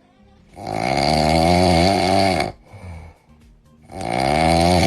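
A person snoring loudly: two long, pitched snores, each about two seconds long, the first starting about half a second in and the second near the end, with a wavering pitch and a quiet breath between them.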